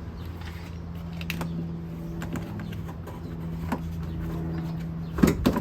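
Plastic air-intake parts being handled and unclipped: scattered light clicks and knocks over a steady low hum, with a louder clatter about five seconds in.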